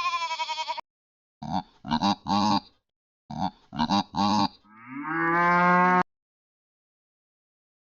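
Sound-effect clips from a library played back one after another, each starting and stopping abruptly: a short call with a wavering pitch, two runs of three quick calls, then a long low call that rises and then holds steady for about a second.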